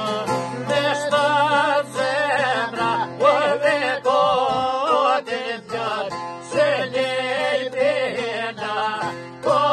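A man sings an Albanian folk song in an ornamented, wavering voice, in phrases, to plucked long-necked lutes (çifteli and sharki) playing along.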